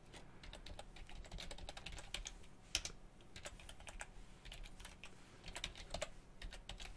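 Typing on a computer keyboard: a quick, irregular run of faint key clicks.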